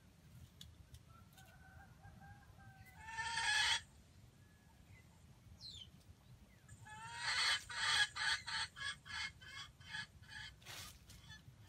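Red junglefowl (wild chicken) calling: one harsh call, then a few seconds later a run of clucks, about four a second, that fade away.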